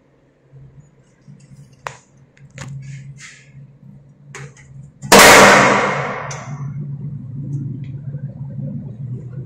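A few faint sharp clicks, then a sudden very loud bang about five seconds in that dies away over a second or so, with a low steady hum underneath.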